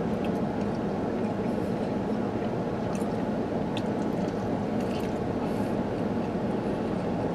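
Steady low noise of a car's cabin, with a few faint clicks and rustles of a wrapped burrito being bitten and chewed.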